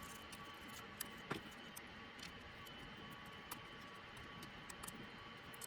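Faint, scattered light clicks and taps from handling plastic laptop parts, over a low steady hiss with a faint whine.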